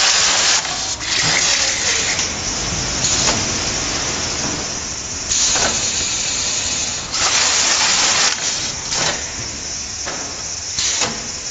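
Automatic carton side-and-corner sealing machine running, with a steady machine din and irregular loud bursts of hiss, each half a second to a second long.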